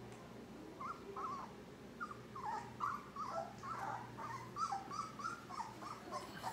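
Three-and-a-half-week-old Labrador retriever puppy whimpering: a quick string of short, high, wavering squeaks that starts about a second in and keeps going.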